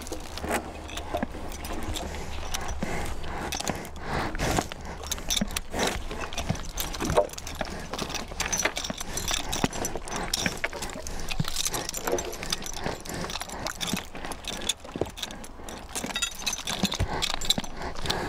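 Belgian draft horse logging: metal chains and harness jangling with a busy, irregular scatter of clinks and knocks, along with hoofbeats.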